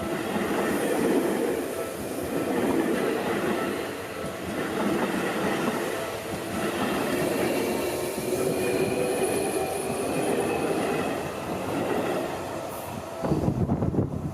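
A Seibu Ikebukuro Line train passing close by: steady wheel-on-rail running noise with a faint high wheel squeal in the middle, and a sudden low rumble near the end.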